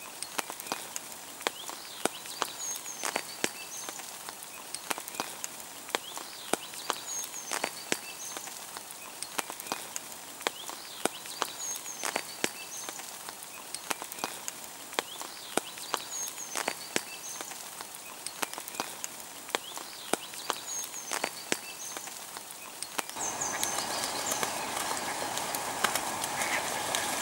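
Steady rain falling on a pond, with many sharp, irregular ticks of drops and faint high chirps now and then. About 23 seconds in it changes to a louder, fuller rush of splashing water.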